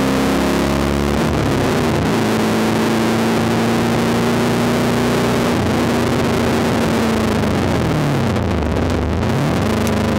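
V8 Supercar engine heard from inside the cockpit, running hard at steady high revs; near the end the revs fall away and then climb again as the car comes off and back on the throttle.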